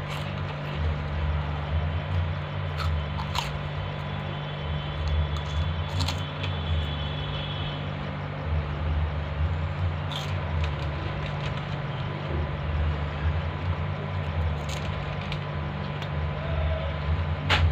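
Someone chewing crunchy fried snack chips, with a few short sharp crunches scattered through, over a steady low hum.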